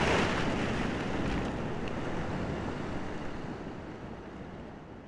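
Sea surf washing over shoreline rocks: a rushing swell at the start, then a steady wash of water that fades out gradually.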